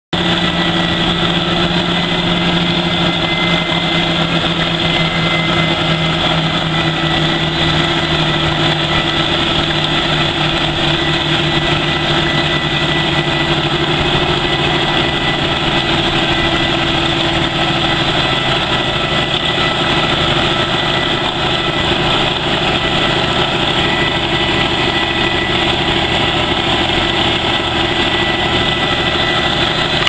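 A tractor-drawn Yield Max sweet potato harvester digging rows: a steady drone of the engine and the running digger chains, unchanging in pace.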